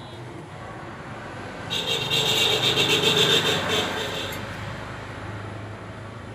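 Steel square tube scraping across a concrete floor and against another piece of tube as the two are pushed together: a rasping scrape starting about two seconds in and lasting about two and a half seconds, over a steady low hum.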